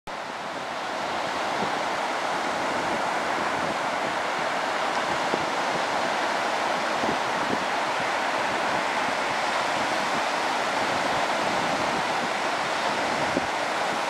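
Surf breaking and washing up a sandy beach: a steady, even rush of waves, fading in over the first second.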